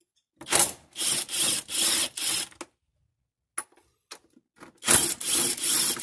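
Cordless driver spinning out 8 mm fasteners, in two runs of three or four short trigger pulses each, the second starting about five seconds in.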